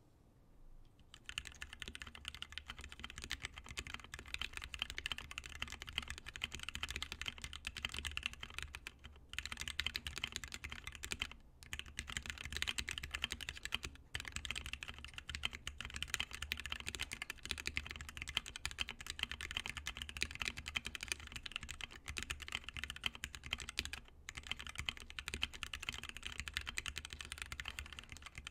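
Continuous typing on a custom 60% mechanical keyboard with lubed and filmed Gateron Red Ink linear switches in a KBDFans Tofu 60 aluminium case. The keystrokes begin about a second in and stop briefly a few times.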